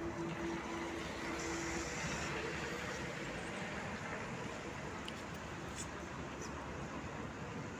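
Street traffic noise around city buses standing at a stop with their engines running: a steady rumble and hiss. For the first two seconds or so an electronic beep sounds, pulsing and then held, before it stops.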